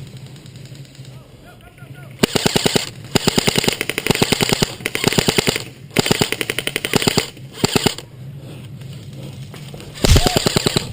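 Airsoft electric rifle (AEG) firing rapid full-auto bursts, one long burst after another starting about two seconds in. There is a pause, then another burst near the end.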